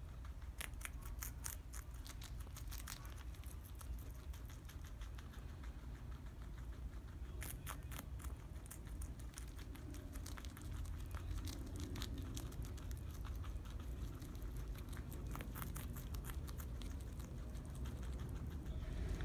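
Two guinea pigs chewing crisp lettuce leaves: quick crunching and tearing clicks in short flurries, over a steady low rumble.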